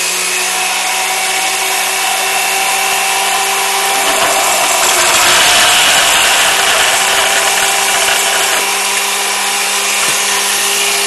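Porta-Band portable bandsaw running steadily with a constant motor hum. Its blade cuts through a CPVC pipe, which makes the sound louder and harsher for a couple of seconds around the middle.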